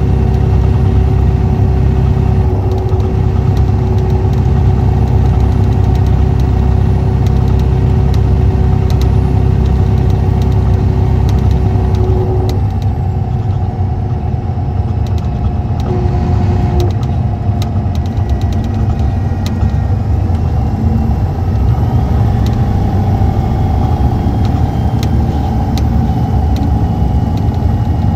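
Cummins ISX 11.9-litre six-cylinder diesel of a 2014 MCI D4500CT motor coach running steadily: a deep engine drone with a faint steady hum above it, easing slightly for a few seconds about halfway through.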